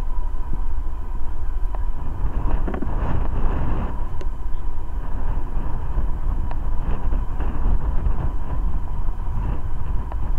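Boeing 747-400's Rolls-Royce RB211 jet engines idling with a steady whine, over a low rumble of wind on the microphone.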